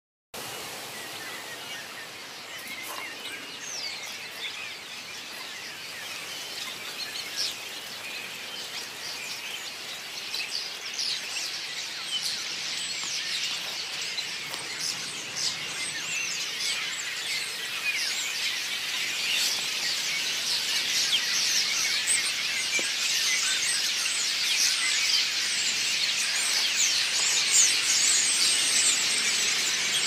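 A huge flock of common starlings calling all at once: a dense mass of chattering, clicks and short whistles that grows steadily louder.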